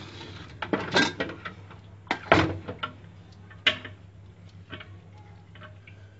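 Several sharp knocks and clicks of kitchen handling, the loudest about a second in, twice just after two seconds and once near four seconds, with fainter ticks later, over a steady low hum.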